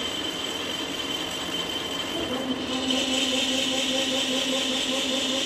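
Ajax AJCBM800 CNC bed milling machine running a program, with a steady high motor whine. About two and a half seconds in, a lower hum and a pulsing note join and the machine gets louder as it moves through its program.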